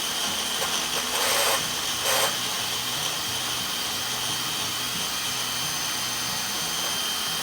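Electric grinder running steadily with a high motor whine, grinding Cheetos Flamin' Hot puffs into powder. It swells louder briefly about a second in and again about two seconds in.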